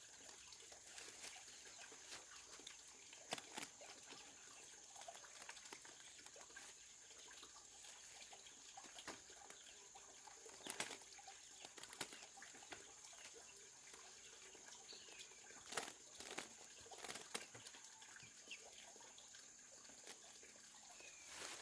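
Near silence: a faint steady high hiss, with scattered faint clicks and taps every second or two.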